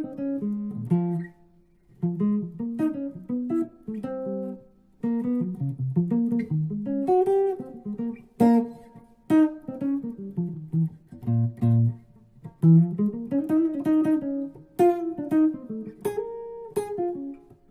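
Guitar playing single-note jazz licks over the 'out' sounds being taught: quick runs of notes in several short phrases, with brief pauses between them at about two and five seconds in.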